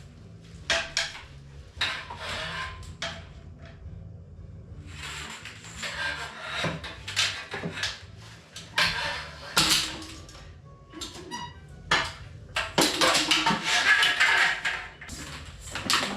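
Repeated knocks, clicks and scraping clatter of fittings and objects being handled and pulled off a wall, with the loudest stretch of scraping near the end.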